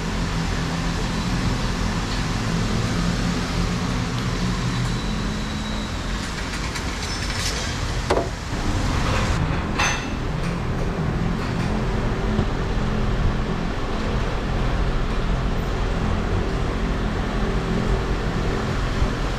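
Steady rushing background noise of a workshop with a low hum, with a short click or knock about eight seconds in and another about ten seconds in.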